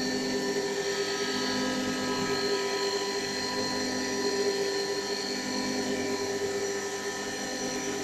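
Mini CNC wood lathe (Camel CA-160) running, its motor giving a steady, many-toned whine as it turns a wooden pen blank against the cutter.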